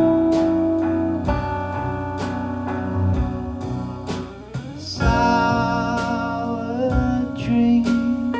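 Live band playing an instrumental passage: guitar over long held notes, with a regular beat of about one hit a second.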